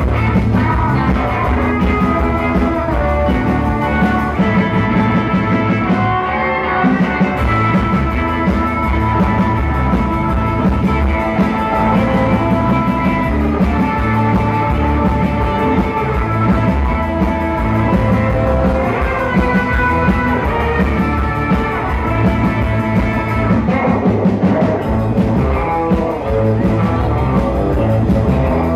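A live rockabilly band playing: electric guitar and strummed acoustic guitar over electric bass and a drum kit, loud and steady with a driving beat.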